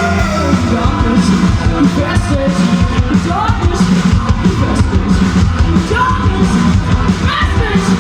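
Rock band playing loudly, with a voice singing over the band.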